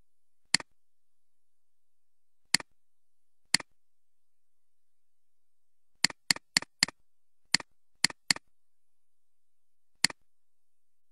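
Computer mouse button clicked eleven times, each click a sharp press followed by a softer release. There are single clicks a second or two apart, with a quick run of four about midway.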